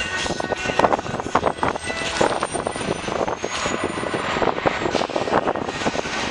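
Vehicle noise heard from inside a car following a Mack LEU garbage truck as it drives off ahead, with frequent short knocks and rattles over a steady rumble.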